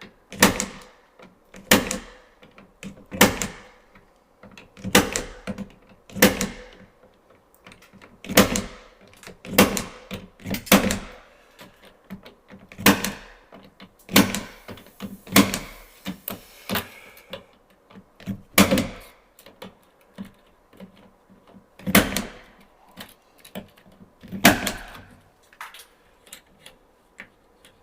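Klein punch-down tool snapping as cable wires are seated into a 110 punch-down block, a sharp snap every second or two, some in quick pairs.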